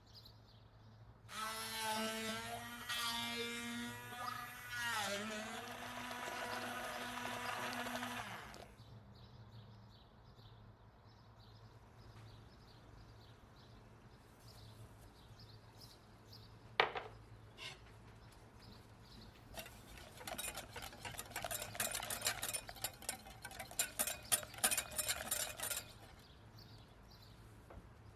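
Electric blender motor running steadily for about seven seconds, its pitch sagging briefly partway through as it takes the load of the tomatoes being puréed. Later comes a spell of rapid, irregular clattering.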